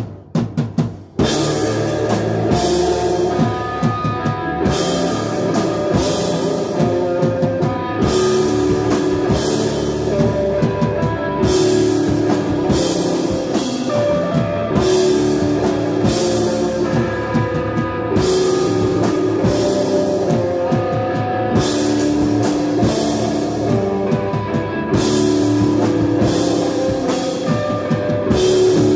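Live instrumental desert rock band playing: drum kit with cymbal crashes, electric guitar and bass guitar. A few separate drum hits open it, and the full band comes in together about a second in.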